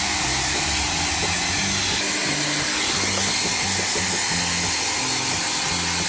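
Handheld hair dryer running steadily as it blow-dries a wet silkie chicken's feathers. Background music with low, changing bass notes plays under it.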